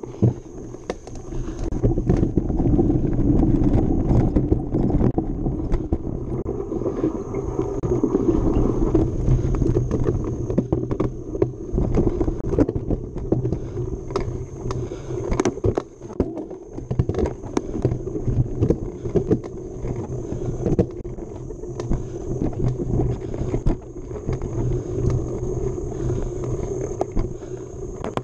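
Mountain bike being ridden fast over a dirt trail: continuous rumbling tyre noise with frequent irregular clatter and knocks as the bike goes over bumps.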